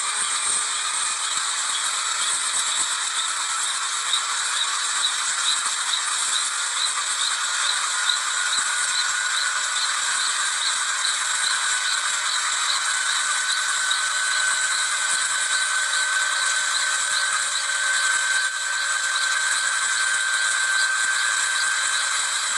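Small intermeshing-rotor helicopter running on the ground: a steady rattling clatter under a whine that slowly rises in pitch, with almost no bass.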